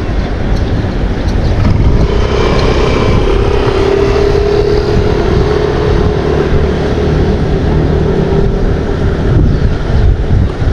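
Wind rumbling on the microphone, with a steady engine drone coming in about two seconds in and fading near the end.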